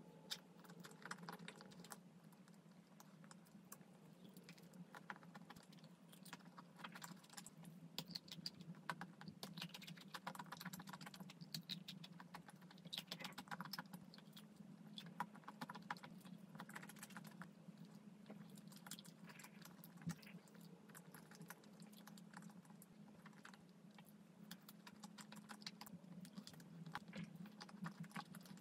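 Close-miked chewing of soft chocolate mousse cake and chocolate-coated sweets: faint, frequent wet mouth clicks and smacks. A low steady hum runs underneath.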